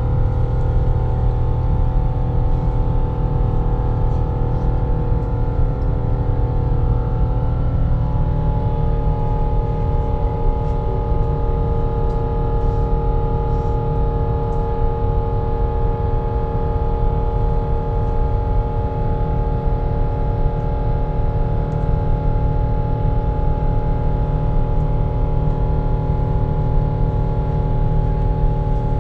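Steady airliner cabin drone: a strong low rumble with several held tones over it, which shift slightly about eight seconds in.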